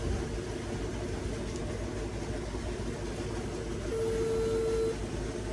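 Tubewell pump motor running with a steady low hum. Near the end, a phone plays one steady ringback beep about a second long while a call waits to be answered.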